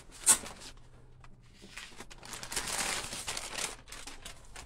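Brown kraft-paper packing crumpling and rustling as it is pulled out of a cardboard shipping box, with a single sharp snap just after the start.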